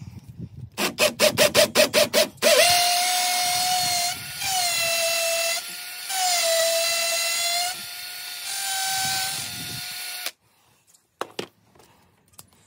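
Cordless drill boring a hole into a concrete block wall: a run of short trigger pulses to start the hole, then a steady motor whine for about eight seconds, its pitch dipping and recovering a few times, which cuts off near the end. A few faint clicks follow.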